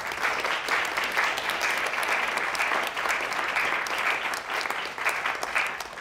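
Audience applauding: many people clapping together, thinning out near the end.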